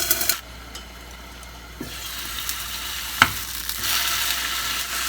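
Pumpkin slices sizzling in oil and a little water in a lidded frying pan, steaming. A loud crackling sizzle drops away suddenly about half a second in, then the quieter sizzle slowly builds again, with one light knock about three seconds in.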